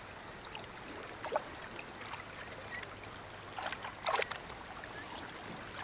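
Steady trickling and lapping of shallow water, broken by a few short sharp splashy sounds, the loudest about four seconds in.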